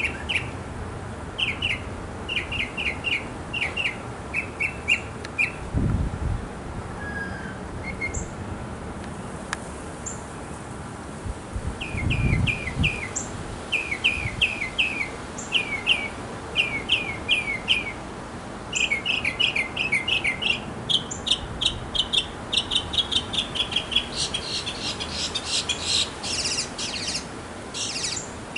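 Northern mockingbird singing: short phrases of quick chirping notes, each repeated several times before it switches to a new one. There is a gap of several seconds early on with only scattered notes, and the phrases turn higher and denser near the end.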